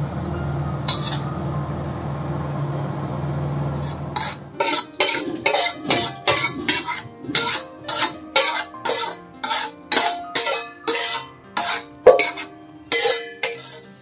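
A steady low hum, then a metal spatula scraping and clanking against an iron wok as the food is scooped out into bowls. The strokes come about twice a second with a brief ring after each.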